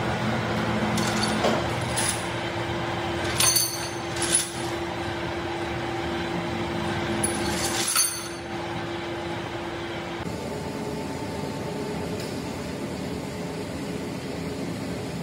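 Steel lifting chain clinking against a large steel shaft as the crane sling is taken off, with several sharp metallic clinks in the first eight seconds. Under it a steady machine hum runs and changes tone about ten seconds in.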